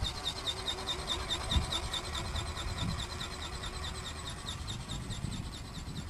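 Seagull-shaped RC ornithopter's motor and flapping-wing drive buzzing with a fast, even pulse. It grows fainter over the last few seconds as the model flies off, with low gusts of wind on the microphone.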